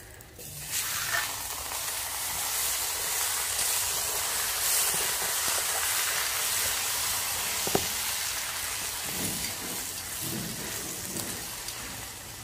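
Butter sizzling under a roti frying on a hot iron tawa: a steady hiss that comes up about a second in as the roti is turned and pressed with tongs. A single sharp click sounds near the eight-second mark.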